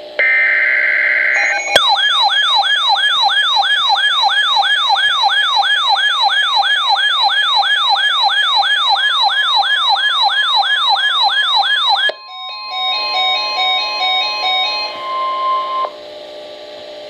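An Emergency Alert System alert begins with a brief burst of screechy header data tones. Then comes a loud electronic siren-like attention signal, a rising sweep repeated about three times a second, which stops abruptly after about ten seconds. It gives way to a steady tone with stepped electronic beeps.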